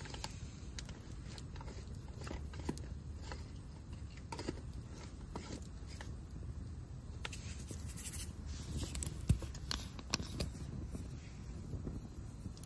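Split firewood burning in a metal fire stand, crackling with scattered irregular pops over a low steady rumble.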